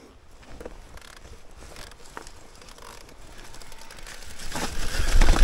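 Mountain bike's rear freehub ticking rapidly as the bike coasts, with wind and tyre noise growing louder near the end.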